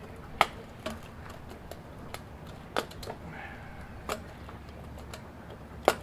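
Sharp plastic clicks as wire-harness connectors and a ribbon cable are pulled off a printer's logic board. There are about six separate clicks, the loudest one near the start and one just before the end.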